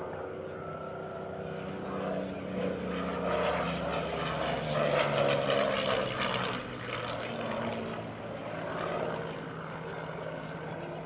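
Single-engine propeller fighter plane's piston engine droning as it flies past. The drone grows to its loudest about five seconds in, dropping slightly in pitch as the plane passes, then fades a little.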